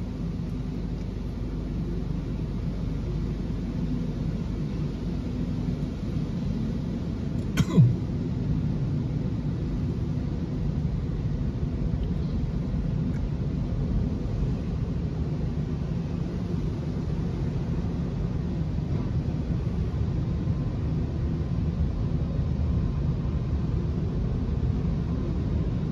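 Automatic tunnel car wash running, heard from inside the car's cabin: a steady low rumble of machinery and water on the body. About eight seconds in there is one brief, sharp, louder sound.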